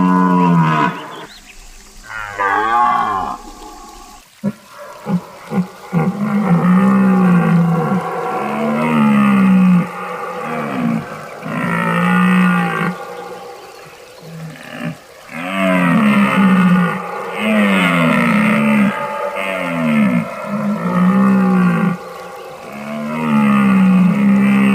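Deer calling: a long low call, then, after a short break with a brief higher call and a few clicks, a steady series of deep arching bellows, one about every two seconds.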